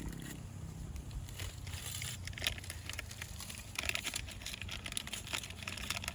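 Wood fire crackling in a camp fire pit: irregular sharp crackles and snaps, thicker around the middle and later, over a low rumble.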